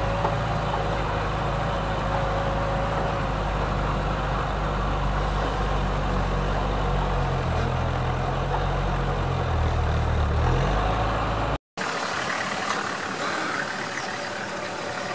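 Off-road 4x4's engine running steadily, heard from on board as the vehicle drives, with a steady higher tone above it; it grows a little louder about ten seconds in. It then cuts off abruptly and gives way to a quieter vehicle engine idling.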